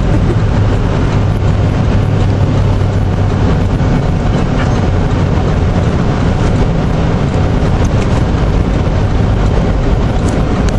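Steady road noise inside a moving car: engine and tyres rumbling on a snowy, slushy road. A low hum is strong for the first half and eases off about halfway through.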